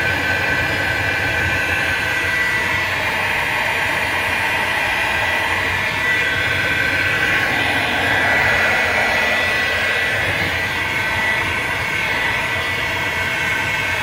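Milwaukee heat gun running steadily: a rush of blown air with a steady high whine from its fan. It is blowing hot air onto a freezer evaporator choked with frost, melting the ice buildup of a failed defrost.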